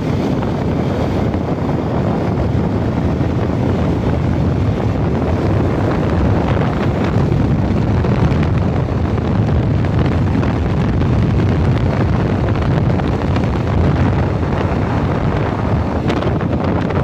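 Steady wind rushing over the microphone of a moving motorbike, a dense, even low rumble with the bike's running noise underneath.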